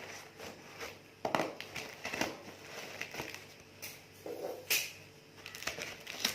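Packaging being handled and opened: irregular rustling and crinkling with scattered clicks and knocks, loudest about three quarters of the way through.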